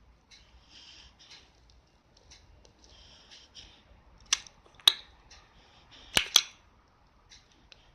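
A sleeping dog snoring in thin, hissy breaths. From about halfway through, four sharp clicks come in two pairs and are the loudest sounds.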